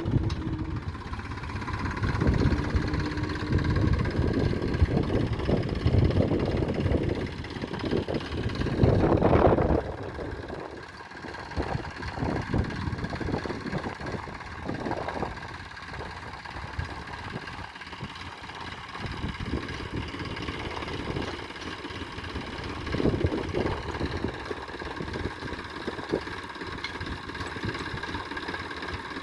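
Heavy machinery engine running, louder and surging for about the first ten seconds, then settling to a quieter, steady idle.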